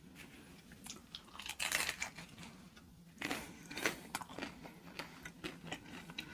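Biting into and chewing a Jack in the Box taco, its deep-fried shell crunching close to the microphone. There are two louder bite crunches, about a second and a half in and about three seconds in, followed by quicker, smaller chewing crunches.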